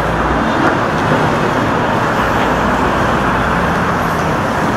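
Steady street traffic noise, an even hiss and rumble of vehicles with no distinct events.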